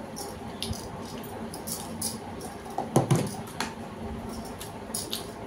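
Eating sounds: chewing and scattered light clicks of a plastic spoon against plastic plates, with one louder short sound about three seconds in.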